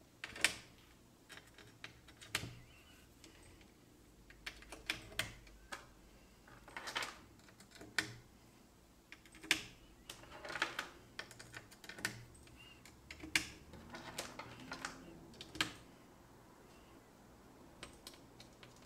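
3.5 mm patch cables being plugged into Eurorack synthesizer module jacks: quiet, scattered clicks and small knocks at irregular intervals, a second or two apart.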